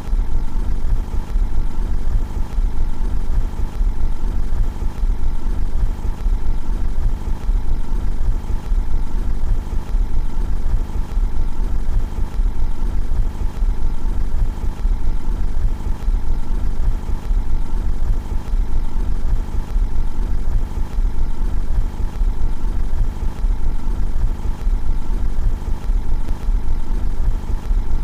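Car engine idling steadily, heard from outside the car, with a constant low rumble.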